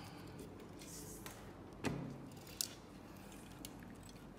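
Small clicks and light knocks of metal parts being handled on a scale-model truck chassis, with a soft knock about two seconds in and a sharp click just after it.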